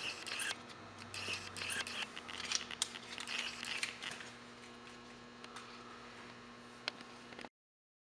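Hands handling the cables and plugs at a TV lift's control box: faint scratching and rustling with a few small clicks over a low steady hum. The sound cuts off abruptly near the end.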